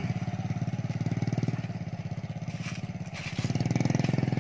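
Small motorcycle engine running steadily at low speed with an even, rapid pulse, getting louder about three seconds in.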